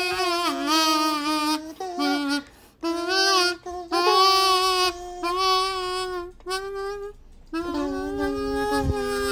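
Kazoo playing a slow melody in phrases of held notes, the pitch sliding between notes, with short breaks between phrases.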